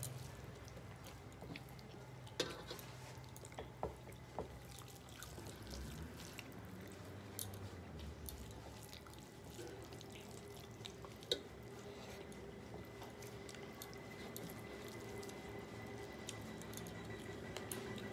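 Eating rice by hand: soft wet squishing as fingers mix and scoop rice with vegetables and curry on metal plates. A few sharp clicks stand out, the loudest about two and a half seconds in and again around eleven seconds.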